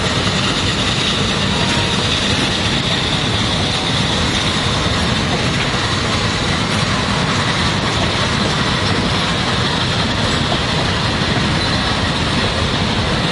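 Shay geared steam locomotive No. 7 'Sonora' and its open passenger cars passing close by: a steady mix of steam exhaust and the clatter of wheels on the rails.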